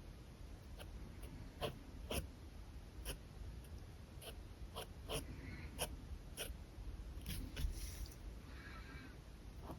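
Pen nib scratching across paper in short sketching strokes, with irregular sharp clicks between them and two longer scratchy strokes, about five seconds in and again near nine seconds.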